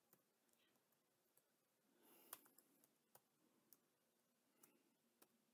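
Near silence with a few faint, sparse computer keyboard clicks as a query is typed.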